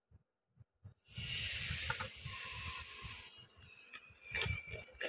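Plastic food packet rustling and crinkling as it is handled. A loud, hissy rustle starts about a second in and lasts a couple of seconds, followed by sharper crinkles and small knocks.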